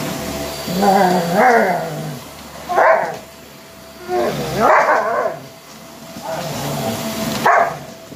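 German Shepherd puppy barking at an upright vacuum cleaner in several short, loud bouts, reacting to the machine as it lunges and bites at it. A steady hum from the running vacuum lies underneath.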